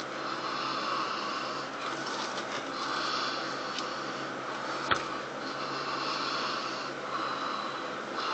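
Garlic powder being shaken from a shaker onto raw fish, heard as faint soft rustling over a steady background hiss, with one sharp click about five seconds in.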